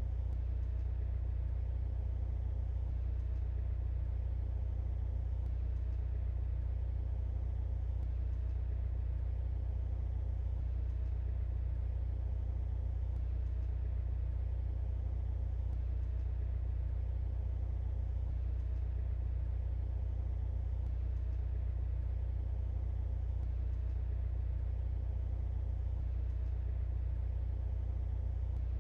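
Mercedes-AMG C43's turbocharged four-cylinder engine running at a constant speed, a steady low rumble with an even hum above it that does not rise or fall.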